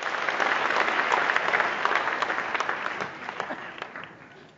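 Audience applauding, many hands clapping at once, dying away over the last second or so.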